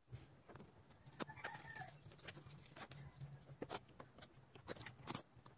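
Faint, scattered clicks and taps of a diamond painting drill pen picking up resin drills and pressing them onto the sticky canvas. A chicken clucks briefly a little over a second in.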